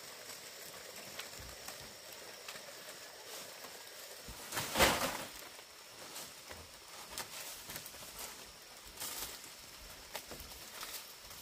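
Dry leaf thatch rustling and crackling as bundles of leaves are handled and laid on a thatched roof, with one louder rustle about five seconds in and a few shorter ones near the end.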